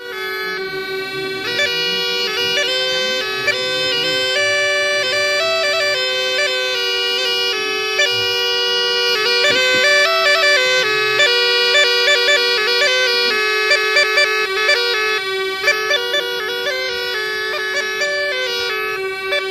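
Homemade plastic bagpipe with an inflatable balloon bag playing a quick melody on its plastic chanter over a steady drone.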